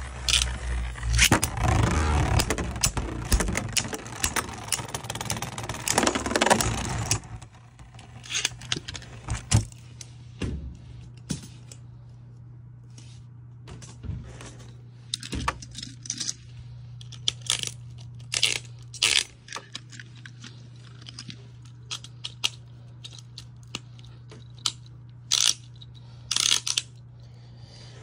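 Beyblade Burst spinning top running on a plastic stadium floor for about seven seconds, then stopping. After that comes a low steady hum with scattered light clicks and clinks.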